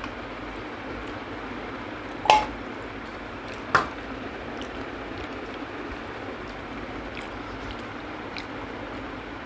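Two sharp clinks of stainless steel bowls being moved and set down against each other, about two and four seconds in, the first with a brief metallic ring, over a steady background hiss. Faint small ticks of eating by hand come between them.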